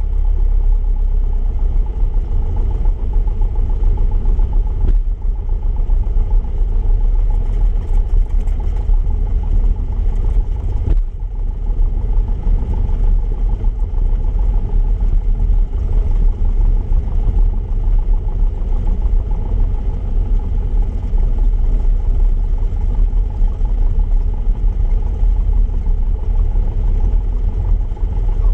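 Single-engine light aircraft's piston engine and propeller running steadily at taxi power, heard from inside the cockpit, with a brief dip about eleven seconds in.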